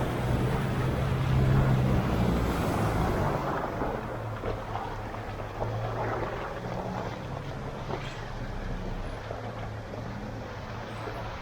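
A 4WD vehicle's engine running with a steady low hum, under a loud rushing noise that fades after the first few seconds.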